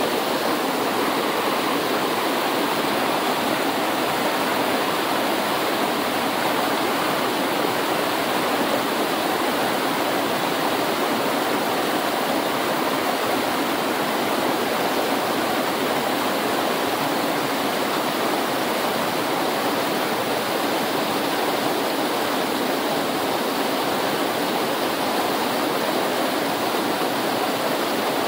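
Himalayan river water rushing in a steady, unbroken stream.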